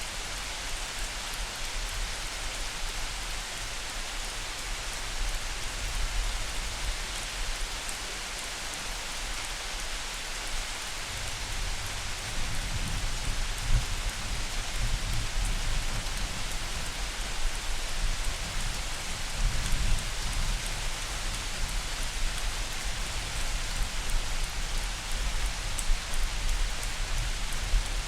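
Steady light rain falling, an even hiss of many drops, with a low rumble underneath that grows louder about halfway through.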